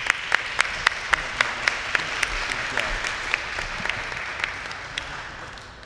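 Audience applauding, with one close pair of hands clapping steadily about four times a second above the rest; the applause thins out near the end.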